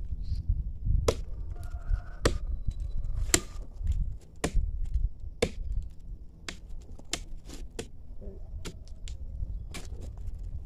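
Blade chopping into the bark of a jatobá tree trunk to cut away a piece of bark: a series of irregular sharp strikes, roughly one a second.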